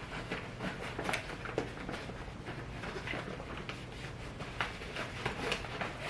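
Faint, scattered small clicks and taps of makeup products and tools being handled, over a steady low hum.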